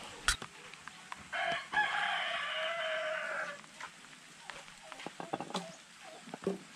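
A rooster crowing once, one long call of about two seconds that sinks in pitch at its end. A sharp click comes just before it.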